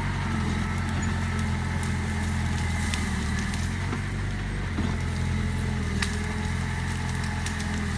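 Mitsubishi BD2F bulldozer's diesel engine running steadily, its note shifting slightly about halfway through, with a few faint clicks over it.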